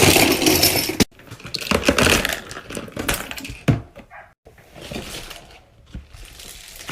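A heap of fidget toys being tipped out and spilling onto a bed, clattering and rattling together. The loudest burst comes in the first second, further rattles follow over the next few seconds, then softer shuffling.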